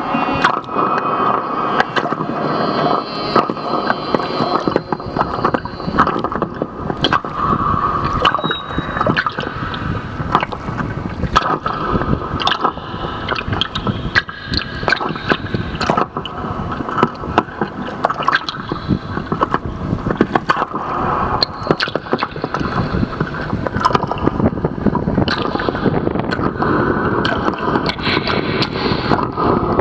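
Underwater sound from a homemade hydrophone lowered into a river: dense crackling and clicking over a steady watery rush, with gurgling and drips.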